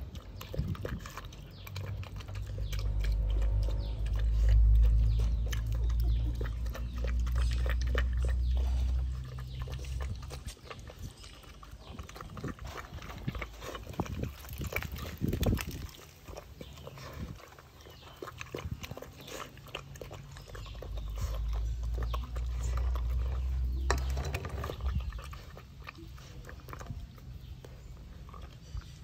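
A dog chewing, with many short clicks and smacks. A deep rumble comes in twice: for several seconds near the start, and again for a few seconds past the middle.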